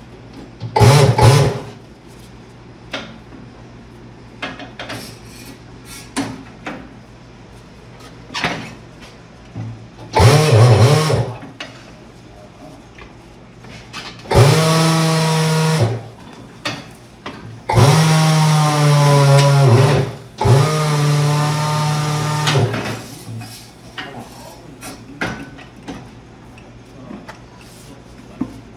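Tire changer's motor-driven turntable running in short bursts while a tire is being mounted onto a wheel: five runs of a steady hum, the three longest between halfway and three-quarters through. Scattered knocks and clicks from the tire and tools between the runs.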